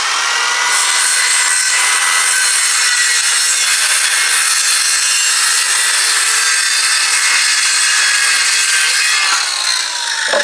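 Electric power saw cutting plywood, running steadily, then winding down near the end as the cut finishes.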